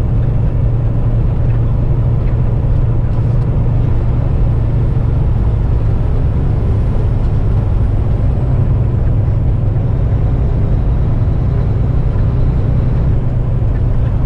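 Kenworth semi-truck's diesel engine running steadily at highway cruising speed, a constant low drone with road noise, heard from inside the cab.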